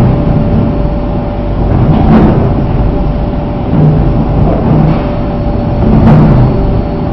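Aluminium dross cooling machine running loud and steady: a deep mechanical rumble with a thin constant hum, and a louder rushing surge every second or two as the dross is worked.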